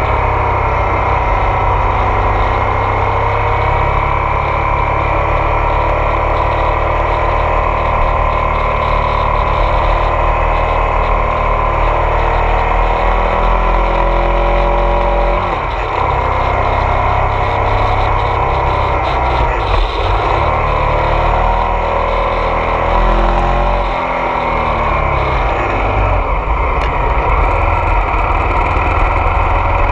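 Ducati Multistrada 1200 S DVT's Testastretta twin engine running while riding, its pitch rising and falling with the throttle, with a short drop in the engine note about halfway through. Wind noise over the bike-mounted microphone is mixed in.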